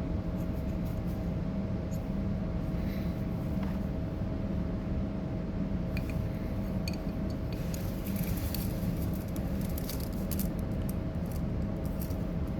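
Steady background hum with a thin constant tone, and from about six seconds in, light clicks and rustles of small parts being handled.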